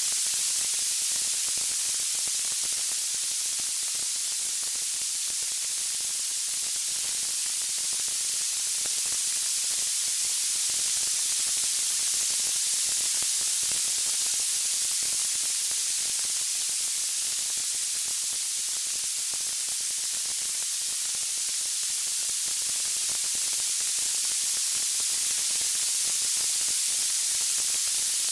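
Steady white-noise hiss, strongest in the high end, slowly swelling and easing in level, with no distinct crackles or pops.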